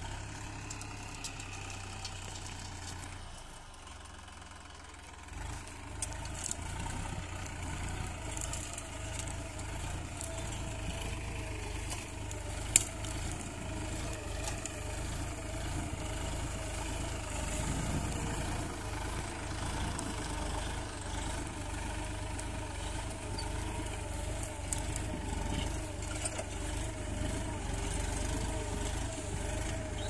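Massey Ferguson 9500 tractor's diesel engine running steadily under load as it pulls a mouldboard plough through hard, dry soil. The engine grows louder after about five seconds, and a single sharp click stands out a little before halfway.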